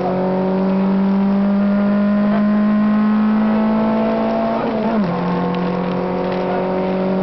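Citroën AX GTi rally car's 1.4-litre four-cylinder engine heard from inside the cockpit, pulling hard at high revs with a slowly rising note. About two-thirds of the way through the revs drop sharply at a gear change, then climb again.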